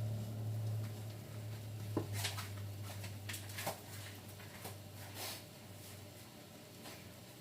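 Light clicks and scrapes of kitchen utensils being handled, a few at a time, over a low steady hum that fades out near the end.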